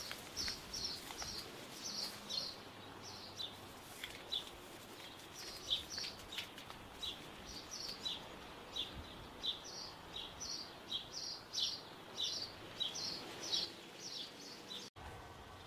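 A bird chirping over and over, short high notes a couple of times a second, against faint outdoor background noise; the sound drops out for an instant near the end.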